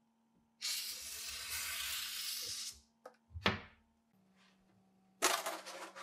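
Marker pen drawn along a steel ruler across a foam board: a steady scratchy hiss lasting about two seconds. It is followed by a short swish falling in pitch and, about five seconds in, a brief clatter of clicks as the board and ruler are handled.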